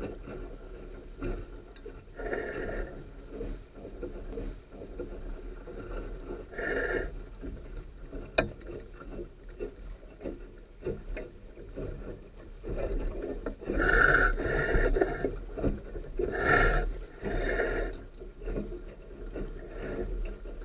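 Water rushing and splashing along the hull of a Sunfish sailing dinghy under sail, swelling in irregular surges every few seconds as the bow meets waves. A single sharp click about eight seconds in.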